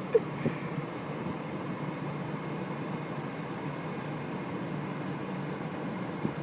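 A car driving, with a steady, even noise of engine and tyres; there are a couple of brief clicks about half a second in.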